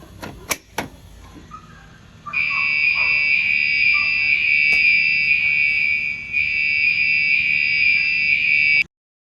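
Two sharp clicks, then a fire alarm sounding a loud, steady high-pitched tone from about two seconds in. The tone breaks for a moment about six seconds in and cuts off suddenly just before the end.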